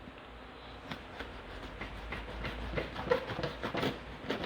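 A shipping package opened by hand: irregular crinkling of packaging with small clicks and taps, over a low steady hum.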